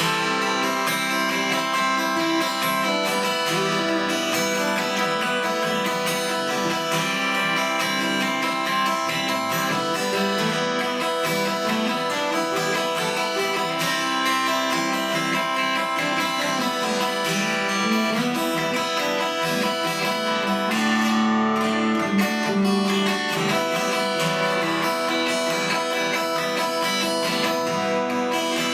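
Acoustic guitar strumming chords steadily in an instrumental break between verses of a song, with no singing.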